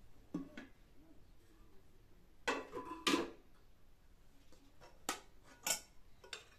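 Metal pot lid lifted off a pot and set down with a loud clatter of two knocks, followed by three light clinks of metal kitchenware and a spoon against a steel pan.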